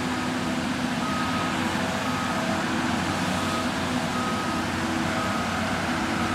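Diesel engine of a Cat 573C feller buncher running steadily, with a backup alarm beeping about once a second as the machine reverses.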